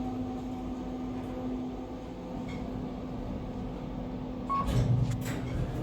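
Kone EcoDisc machine-room-less traction elevator travelling down, heard inside the cab as a steady hum. Near the end comes a short high beep, then a few clicks and low thumps as the car arrives.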